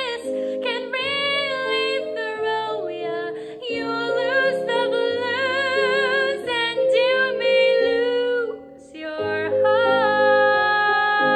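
A woman singing a musical-theatre song solo over instrumental accompaniment, with vibrato on held notes. She breaks for a short breath just under nine seconds in, then sustains a long note to the end.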